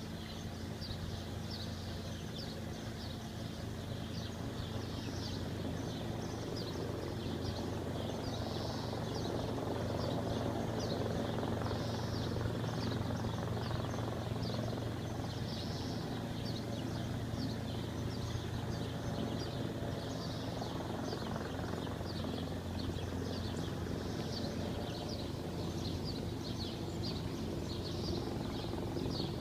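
Aircraft drone overhead, a steady low hum that swells to its loudest about halfway through and then eases off. Small birds chirp rapidly and repeatedly throughout.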